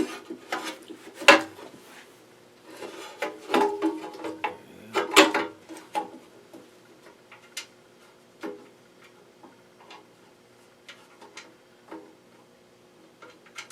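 Scattered clicks and knocks of parts being handled and fitted as a pressure gauge is worked back through a small air compressor's housing, the loudest knocks in the first few seconds and then lighter, sparser taps.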